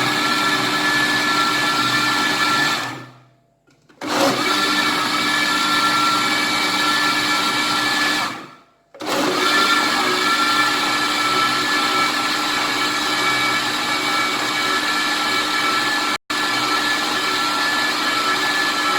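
Electric countertop blender running steadily, mixing eggs, sugar, oil, lemon juice and yogurt into a liquid batter. It winds down and stops twice, about three seconds and about eight seconds in, and starts up again sharply each time.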